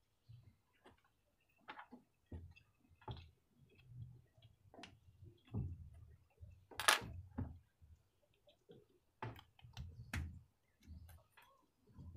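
Irregular small clicks and taps of a plastic bottle cap being handled, with low knocks on the tabletop. About seven seconds in comes one louder, brief scraping rasp.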